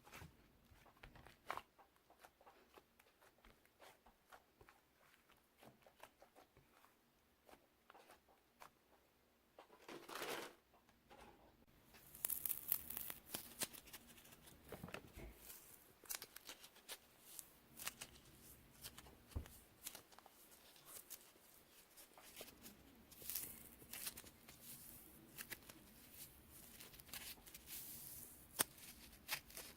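Faint scattered clicks and rustling, with a brief louder swish about ten seconds in and busier rustling after that.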